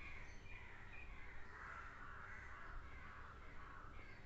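Crows cawing faintly in the background, with repeated harsh calls.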